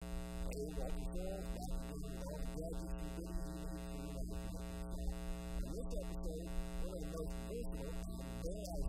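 Steady electrical mains hum with a faint, muffled voice beneath it.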